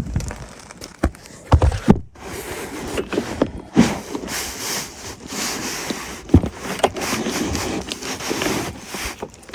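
Wind buffeting the microphone, with several sharp knocks and clatters of handling.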